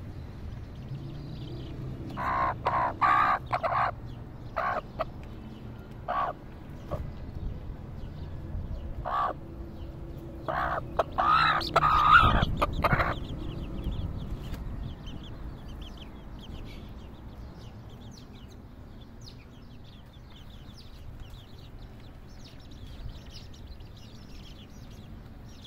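Mother hen clucking in two clusters of short, loud calls, loudest about twelve seconds in, with her chicks peeping faintly and high-pitched around her, most noticeable in the second half.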